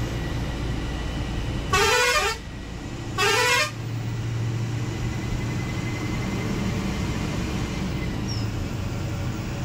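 Two short horn blasts about a second and a half apart, heard from the cabin of an Ashok Leyland BS VI bus as it closes on a truck, over the bus's steady engine hum and road noise.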